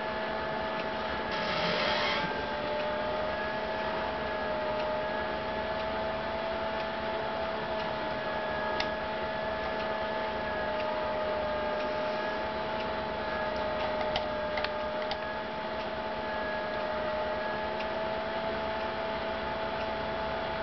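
A steady whine with a slight waver in pitch over a constant hiss, with a brief burst of hiss about two seconds in and a few faint clicks later on. No thunder is heard.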